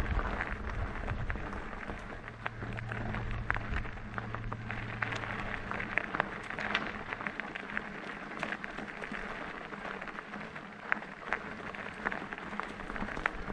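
E-mountain bike rolling over a rough track: tyres crunching, with a constant patter of irregular clicks and small knocks from the ground and the bike. A low hum sounds briefly, a couple of seconds in.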